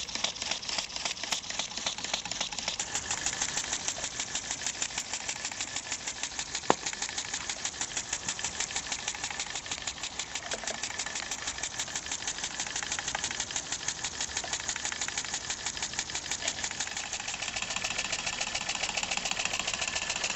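Homemade single-acting, one-piston 3.3 cc steam engine running fast, beating out a rapid, very even rhythm of strokes. A single sharp click comes about seven seconds in.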